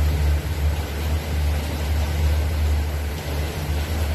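Motorboat engine running steadily: a loud, even, low drone.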